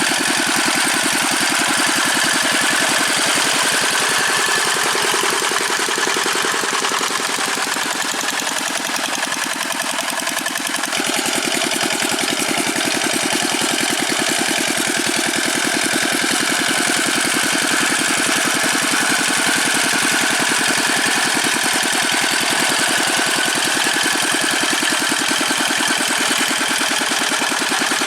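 Old Dongfeng single-cylinder diesel engine of a Quick G600 hand tractor running steadily as it works, a fast even chugging that dips slightly about eight to eleven seconds in before picking back up.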